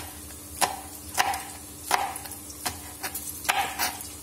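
Kitchen knife chopping green chilies on a plastic cutting board: about six sharp chops, unevenly spaced.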